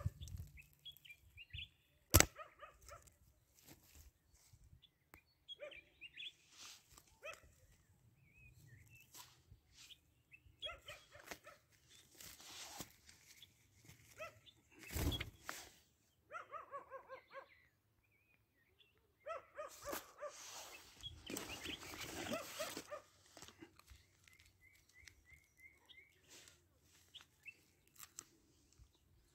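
Repeated short animal calls, with a few thin bird chirps and a sharp knock about two seconds in and another near the middle.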